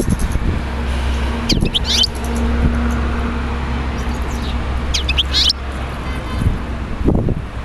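Birds chirping in two short bursts of quick high calls over a steady low rumble, which drops away about five and a half seconds in.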